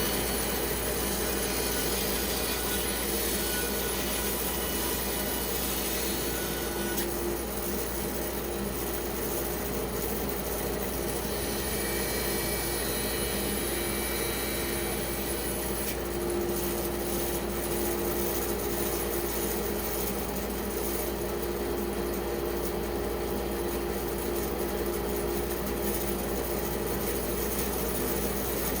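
Bandsaw running steadily as its blade cuts through a pecan log, milling it into bowl blanks.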